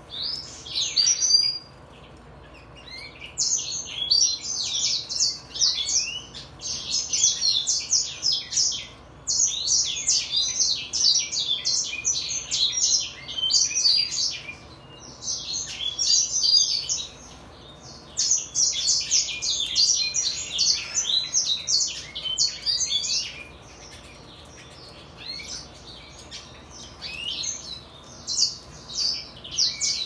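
Brimstone canary × greenfinch hybrid singing: long phrases of rapid, varied, high-pitched twittering and trills, broken by pauses of a second or two, and sparser toward the end.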